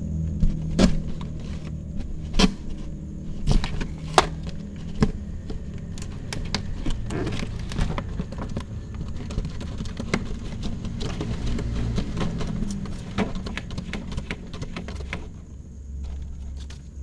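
A kitten scrabbling and climbing at paper-lined box walls: sharp scratches and knocks of claws on paper and wood, loudest in the first few seconds. A low, steady rumble runs underneath.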